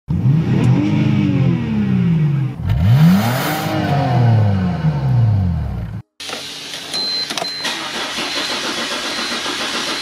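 A BMW engine revved twice in park, each rev rising and falling in pitch. After a cut, a BMW E46 330Ci straight-six turning over on its starter without firing, the crank-but-no-start fault, with a thin high beep coming and going.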